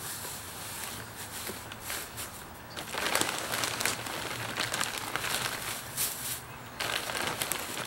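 Handfuls of dry wood-shaving bedding rustling as they are scooped from a crinkly plastic bag and dropped into a plastic tote onto a layer of pellets, with a few louder rustles and small clicks.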